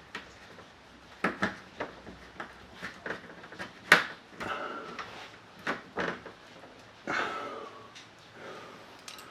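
ABS plastic front lip spoiler and its retaining clips being pushed and tapped into place on a car bumper: a series of sharp plastic clicks and knocks, the loudest about four seconds in, with a couple of short scraping, squeaky rubs of plastic on plastic.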